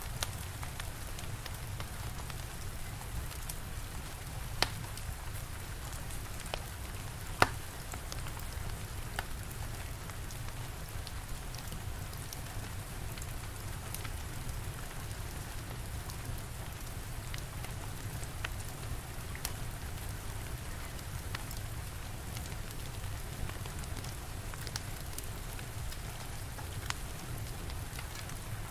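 Steady rain with a low rumble under it, and a wood fire crackling with scattered sharp pops, the loudest about seven seconds in.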